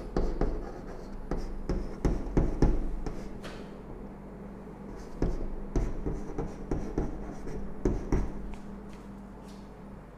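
Chalk tapping and scraping on a chalkboard as a chemical structure is written, in quick clusters of strokes with a short pause about four seconds in and the writing stopping a little before the end. A steady low hum runs underneath.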